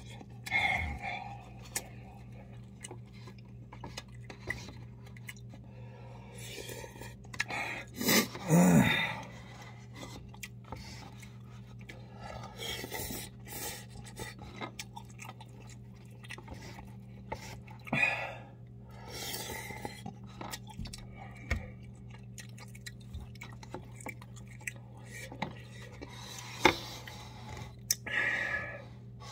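A person eating cup noodles: chewing and slurping noodles in scattered short bursts, with chopsticks knocking against the paper cup. The loudest burst comes about eight seconds in, over a steady low hum.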